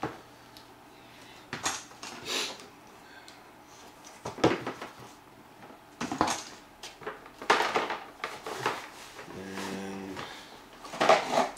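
A cardboard box being cut open and handled: a series of separate scraping, rustling and tearing strokes of cardboard, a second or two apart. A short low hum comes near the end.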